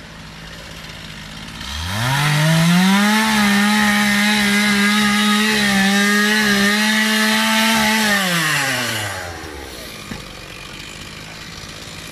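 Petrol chainsaw revving up about two seconds in, then held at full throttle while cutting into a log for about six seconds before easing back down. The chain is blunt and the cut goes slowly.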